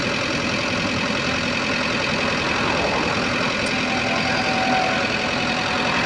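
Motor grader's diesel engine idling steadily close by.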